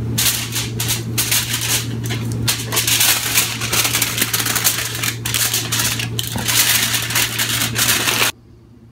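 Aluminium foil crinkling and rustling as hands fold and wrap it around a loaf of meat stuffing, over a steady low hum. It cuts off suddenly about eight seconds in.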